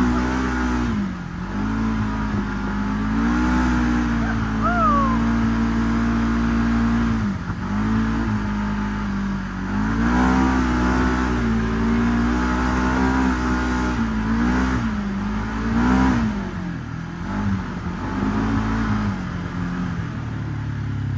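Segway 1000 UTV engine running under changing throttle, its pitch rising and falling over and over.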